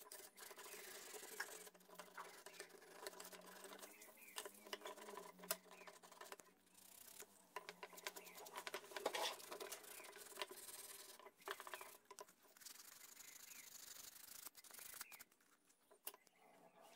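Faint rasping of 400-grit sandpaper rubbed by hand over small wooden toy parts, in quick irregular strokes with a few short pauses.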